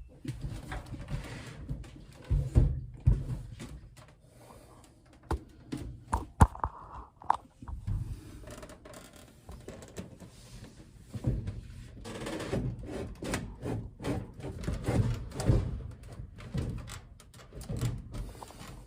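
Scattered knocks, thunks and scrapes of sheet-metal dryer vent parts being handled and fitted together, with a sharp click about six seconds in.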